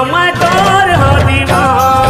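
Chhattisgarhi jas geet, a devotional song to the goddess: a singing voice with ornamented, gliding pitch over a strong drum beat and instruments.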